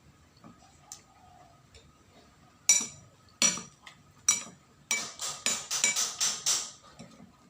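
Utensils clinking against dishware: three separate ringing clinks, then a quick run of clinks.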